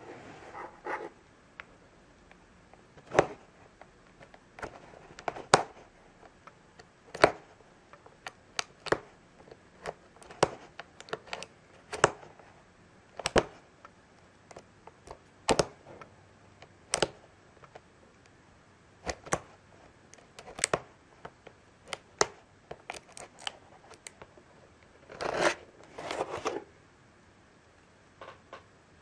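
A hobby knife blade clicking and tapping on a cardboard box as it cuts through the tape seals, in sharp irregular clicks a second or so apart. A longer scraping tear comes about three-quarters of the way through.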